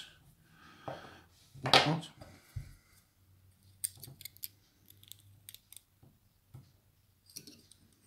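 Light metallic clicks and scrapes of a steel pick probing inside a brass lock cylinder, working at its pins and springs: a cluster of quick ticks about four seconds in and a few more near the end.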